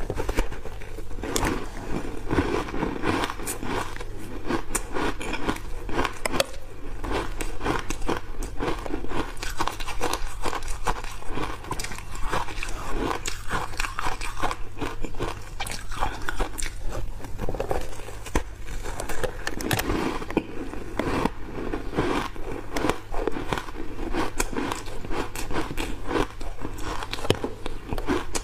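Chewing and crunching of refrozen block ice coated in matcha powder: a dense, steady run of crisp cracks and crackles as the ice breaks between the teeth.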